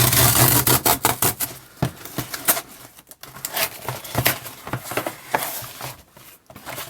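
A mail package being opened by hand: a loud ripping rustle of packaging in the first second and a half, then scattered crinkles, taps and rustles as the contents are handled.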